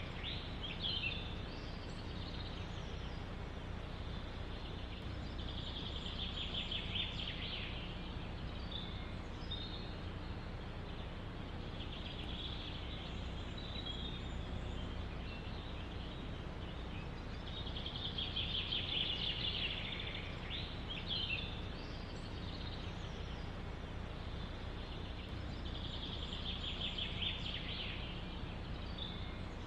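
A songbird singing a fast, trilled phrase about two seconds long, repeated every six or seven seconds, with shorter chirps between, over a steady low background rumble.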